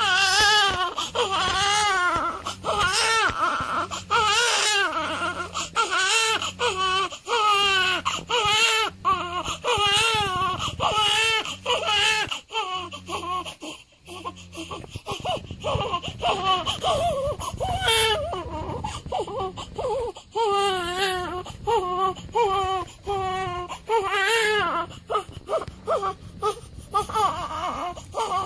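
Newborn baby crying in repeated wavering wails, with a brief pause about halfway through before the crying starts again.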